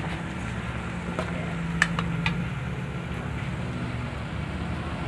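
Spatula stirring chopped pork in a steel wok, with a few sharp clicks of the spatula against the pan between about one and two and a half seconds in, over a steady low hum.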